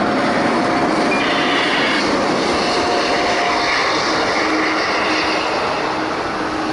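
Airbus A350-900 jet airliner's Rolls-Royce Trent XWB engines running loud and steady after touchdown, with a thin whine that stops a little past halfway and a lower hum coming in near the end.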